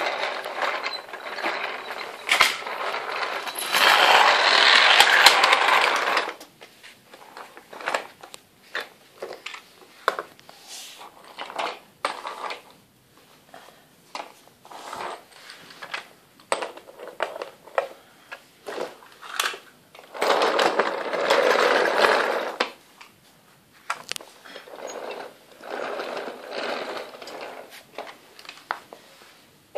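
Small toy cars clicking and clattering against each other and against a plastic play track as they are pushed along it, with two longer stretches of rolling noise, about four seconds in and again about twenty seconds in.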